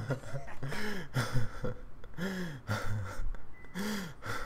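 A man's wheezing laughter: a run of breathy, gasping sounds, each rising and falling in pitch, about one a second.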